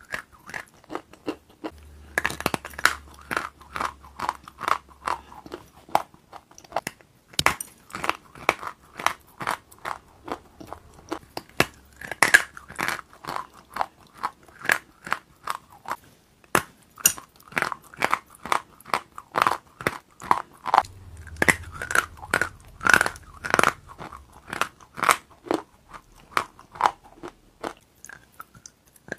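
Close-miked crunching and chewing of crisp, airy white pieces of food, bitten off a piece held in the fingers. The crunches come as dense crackling runs of chews, with short pauses between bites.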